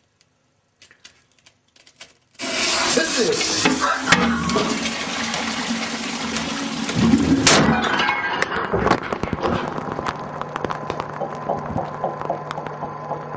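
Toilet flushing: water suddenly rushes through the bowl after a couple of seconds of near quiet, then keeps running with a steady low hum as the cistern refills. A single sharp crack comes about seven seconds in, loud enough to distort.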